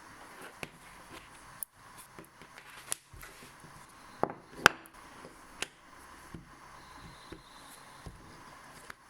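Scattered light clicks and taps of small objects being handled, over a faint steady hiss, with one sharper click about halfway through.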